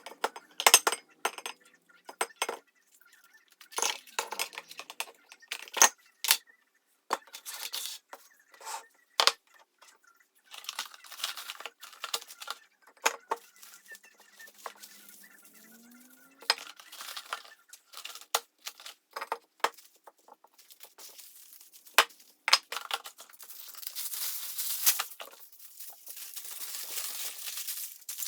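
Containers and packaging being handled and set down one after another: irregular sharp clicks, clinks and knocks. About three-quarters of the way through, a steady crinkling rustle of plastic takes over.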